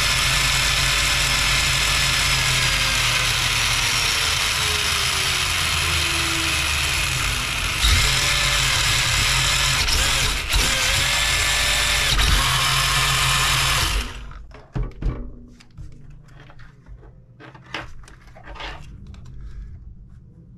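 Axial SCX10 II RC crawler's newly fitted 12-turn brushed motor and drivetrain running steadily on the bench, a loud whirring drone that cuts off sharply about 14 seconds in. Light clicks and handling knocks follow.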